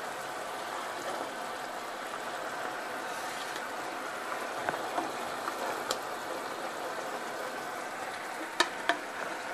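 Coconut-milk gravy bubbling at the boil in a pan, a steady fizzing bubble, with a few light clicks and taps as shallow-fried kingfish steaks are laid in. Two sharper clicks come close together near the end.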